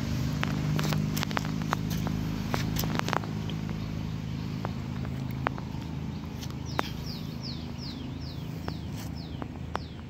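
A steady low rumble with scattered sharp clicks. About two-thirds of the way in, a bird starts a run of quick descending high notes, about three a second.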